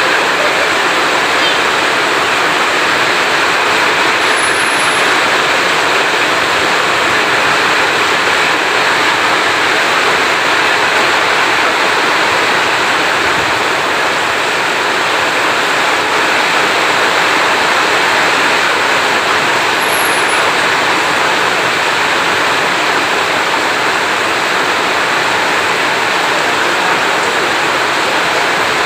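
Heavy rain falling steadily, a dense even hiss with no thunder.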